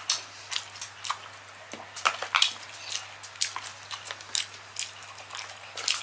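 Close-miked eating: wet chewing and lip smacking on a mouthful of Cajun-seasoned seafood and rice eaten by hand, in many sharp, irregular clicks. A faint steady low hum sits underneath.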